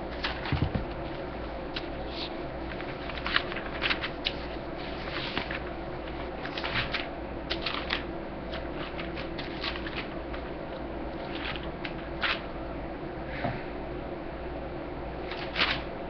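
Irregular rustling and light knocks of someone rummaging and handling things while searching, over a steady fan hum.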